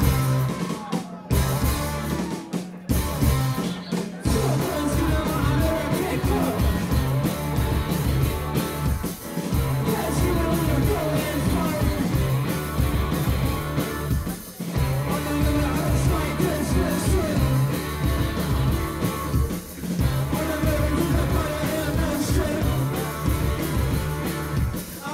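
Live rock band playing loud, with electric guitars, bass guitar and drums and a singing voice. It opens with a few short stop-start hits, then settles into steady, driving playing.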